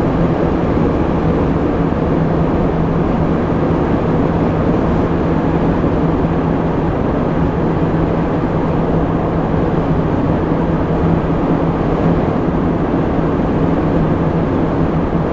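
Steady road and engine noise inside a moving car's cabin, with a steady low hum.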